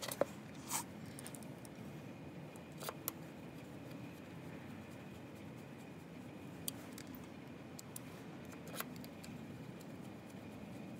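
Screwdriver working the small T-screws on an AVM freewheeling hub cap, snugging them down by hand: a handful of sharp, irregularly spaced metallic clicks from the tip and screw heads.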